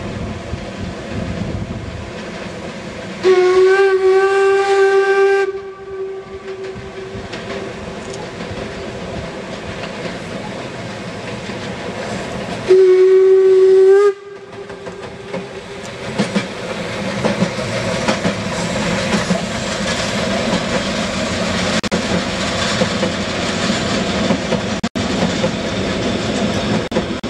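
Narrow-gauge steam locomotive sounding its steam whistle twice, a blast of about two seconds and then a shorter one on the same pitch. In between and afterwards the train runs past, the rattle of the wheels growing louder as the wagons and coaches roll by.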